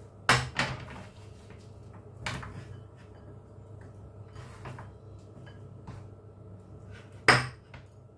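A white bowl set down on a cutting board with a knock, then quiet handling as sliced bell peppers are scooped into it, with a few light taps. A sharper knock comes near the end as the bowl is handled again. A low steady hum runs underneath.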